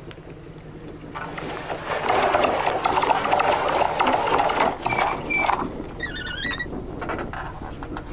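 A ketch's mizzen sail being unfurled out of its in-mast furler: about a second in, loud rustling of sail cloth and running line with many small ticks starts and lasts about four seconds. It is followed by a short wavering squeak, all over the steady low hum of the boat's engine.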